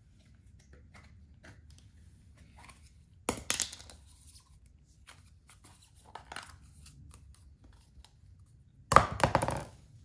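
Plastic Play-Doh tub being opened and emptied by hand: a short pop and clatter about three seconds in as the lid comes off, then a louder rattling clatter near the end as the tub is dropped on the wooden floor.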